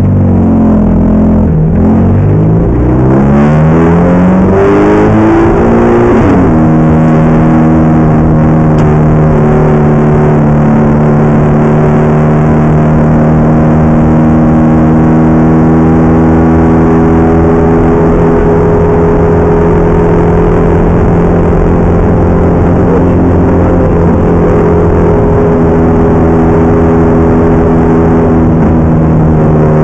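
Ferrari F430 GT race car's V8, heard from inside the cockpit, accelerating hard with the revs climbing and dropping back at several upshifts over the first six seconds or so. It then holds a steady high-speed note.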